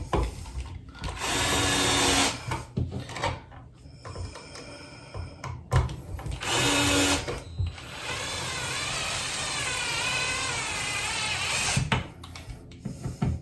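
Battery-powered screwdriver driving screws in three runs: two short ones, then a longer run of about four seconds with a wavering pitch. Light clicks and handling knocks come between the runs.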